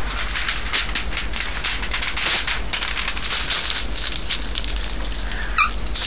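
A sheet of aluminium foil crinkling and rustling as it is folded in three by hand, a dense run of irregular crackles with no break.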